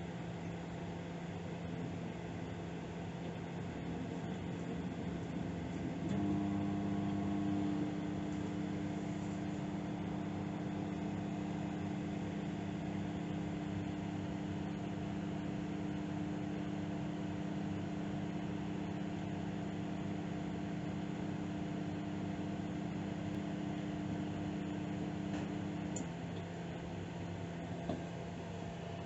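Microwave oven running at medium power: a steady hum throughout, with a louder, deeper buzz that cuts in about six seconds in and cuts out a few seconds before the end. This is the magnetron cycling on and off, as it does at medium power.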